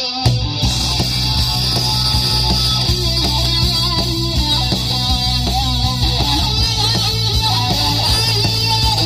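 Live rock band playing electric guitars, bass guitar and drums through a PA. The music drops out for a moment right at the start, then comes back in.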